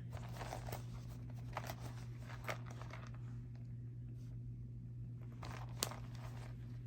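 Faint rustling with a few light clicks and taps as hands handle the dust bag and packaging, over a steady low hum.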